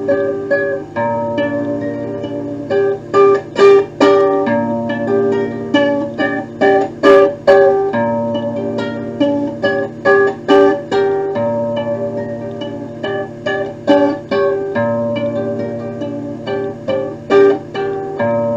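Instrumental music: a melody of short, quickly repeated notes over steady sustained low notes, with loud accented notes at times.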